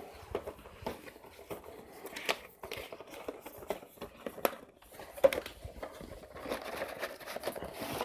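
Cardboard retail box and its inner packaging tray being handled and opened: scattered light clicks, taps and rustling scrapes, with one sharper knock a little after halfway.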